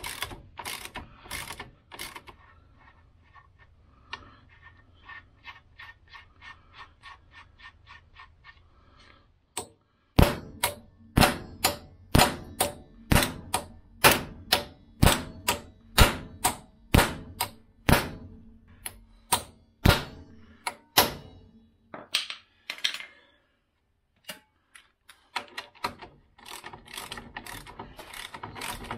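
A ratchet clicking on a nut on the steel steering knuckle arm, with quick light ticks, then about fifteen heavy hammer blows on the knuckle arm over some ten seconds to knock the part loose. Quick clicking starts again near the end.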